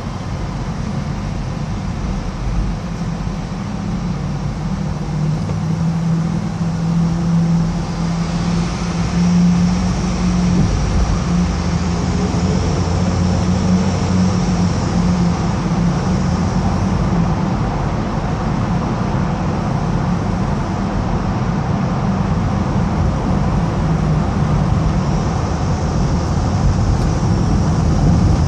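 Steady road and engine noise of a car driving through a road tunnel, with a low hum that grows louder about eight seconds in.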